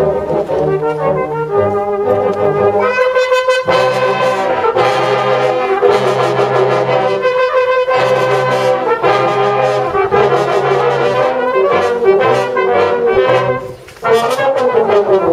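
Brass band playing a piece in full chords, cornets and tenor horns over euphonium and tuba. Near the end the band stops briefly, then comes back in.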